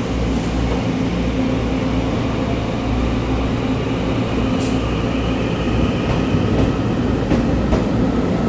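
Ten-car EMU900 electric multiple unit moving along the platform: steady wheel-on-rail rumble with electric motor hum. Higher tones join in over the second half.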